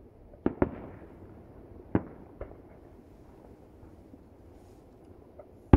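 Aerial fireworks going off, heard from about a kilometre away: sharp bangs, two close together about half a second in, another about two seconds in with a fainter one just after, and a loud one right at the end.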